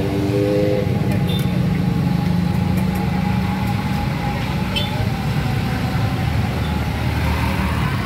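Steady low engine rumble of road traffic, with a few small clicks.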